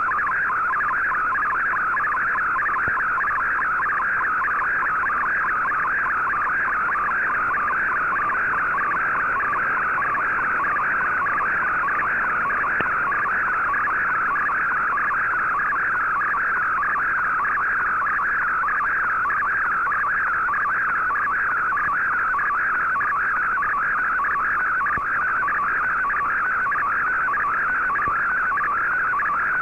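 Shortwave radio receiver audio of an MFSK digital picture transmission: a continuous, fast-warbling data tone centred between 1 and 2 kHz, carrying a colour image that is being decoded.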